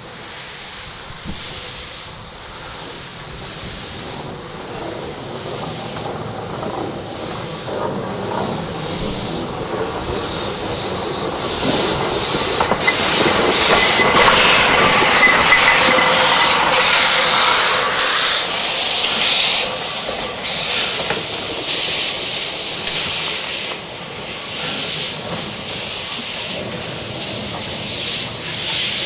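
Narrow-gauge NA class 2-6-2 tank steam locomotive moving slowly, steam hissing from its open cylinder drain cocks. The hiss is loudest about halfway through as the engine passes close, then eases.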